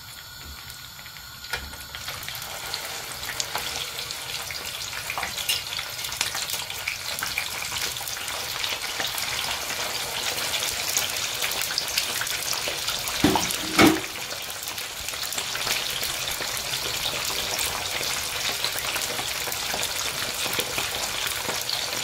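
Chicken burger patties shallow-frying in hot oil: a steady sizzle and crackle that swells a second or two in. Two short knocks come about 13 to 14 seconds in.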